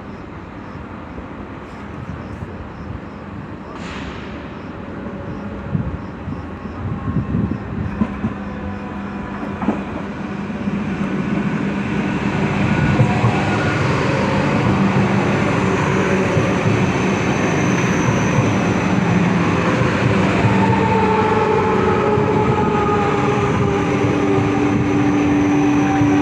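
DB Class 425 electric multiple unit arriving at a platform; its running noise grows louder about halfway through. Over the last third several steady whining tones come from its electric traction drive, the squeal behind the class's 'Quietschie' nickname.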